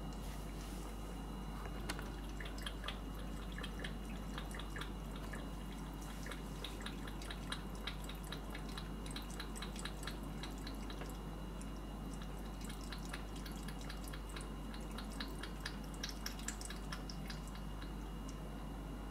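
A cat eating from a stainless steel bowl: irregular wet clicking and smacking of chewing and licking, in clusters of several a second, starting about two seconds in.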